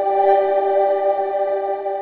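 Ambient intro music: one chord held steady, beginning to fade near the end.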